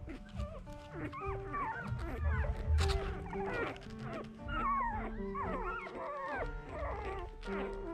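Newborn Miniature Australian Cattle Dog puppies squeaking and whimpering over and over in short, falling cries while nursing, over background music.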